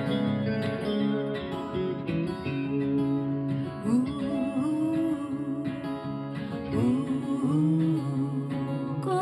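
Acoustic guitars playing an instrumental passage of a slow song: strummed chords under a melody line whose notes bend and slide.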